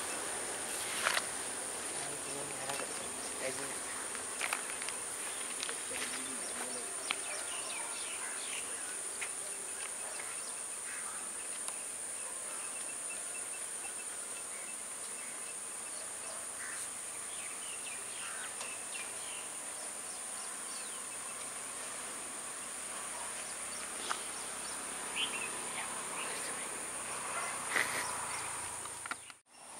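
Insects keeping up a steady, high-pitched buzz, with scattered faint clicks and chirps. The sound cuts out briefly near the end.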